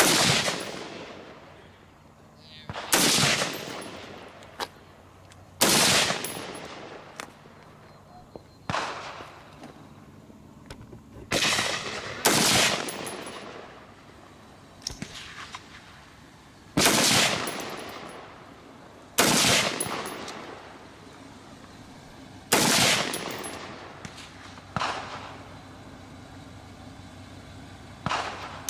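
Gunshots from a firearm: about nine single shots, spaced two to four seconds apart in slow, deliberate fire, each followed by a short fading echo. A few of the shots are noticeably quieter than the rest.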